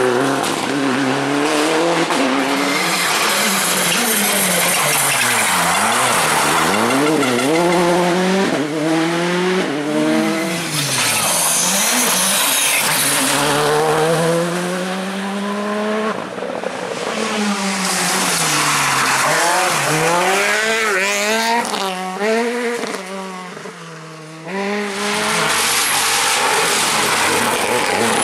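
Rally cars at racing speed on an asphalt stage: engines revving hard, their pitch climbing and dropping repeatedly through gear changes and braking, with tyre noise. The sound fades briefly near the end, then picks up again.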